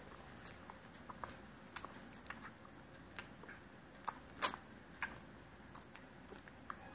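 Newborn puppy suckling from a small nursing bottle: faint, wet clicks and smacks of its mouth working the teat, irregular, about one or two a second, the loudest about four and a half seconds in.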